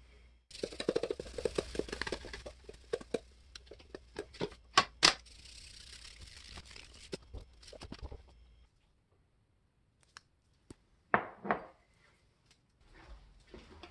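Salt poured from a canister onto a raw chuck roast on a wire rack over a sheet pan: a hiss of grains falling, with many small clicks and a few sharp louder ones. It stops after about eight seconds, and a short burst of handling clicks follows about eleven seconds in.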